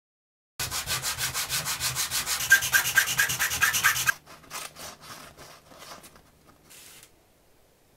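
A small plywood part rubbed by hand back and forth on a sheet of sandpaper: fast, even scraping strokes, about five a second, that stop suddenly about four seconds in. Quieter rustling of a paper template sheet follows.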